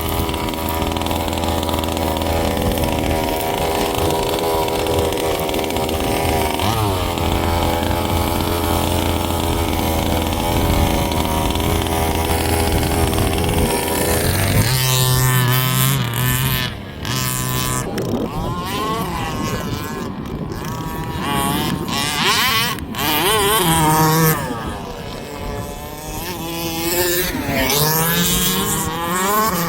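Small two-stroke petrol engines of large-scale RC cars running at high revs. The note holds steady for about the first half, then rises and falls repeatedly as the throttle is worked, with short dips in between.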